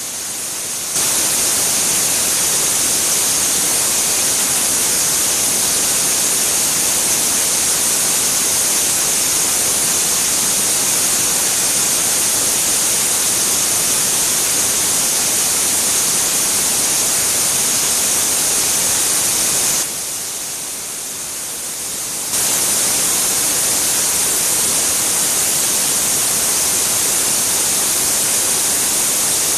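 Steady, loud hiss of a Quick Jet AV-70S CNC milling machine finish-cutting NAK80 mould steel, its spindle turning a small end mill at 12,000 rpm. The hiss drops lower for about two seconds, roughly two-thirds of the way through.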